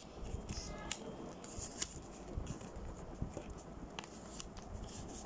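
Sheets of origami paper rustling and crinkling as they are folded and creased by hand, with scattered short crackles.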